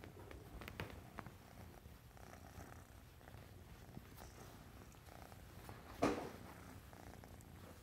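RagaMuffin kitten purring steadily while being petted, with a few small clicks of hand on fur and a brief louder scuff about six seconds in.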